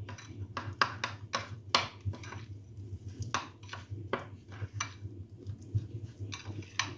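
A metal spoon scrapes and clinks against a glass bowl in short, irregular strokes while cream, powdered sugar and milk powder are stirred into a thick paste.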